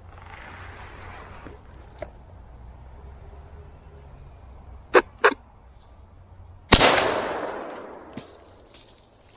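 A single gunshot from a hunting gun about two-thirds of the way through, a sharp crack trailing off over about a second and a half: a shot at a squirrel. A little before it, two sharp clicks about a quarter second apart.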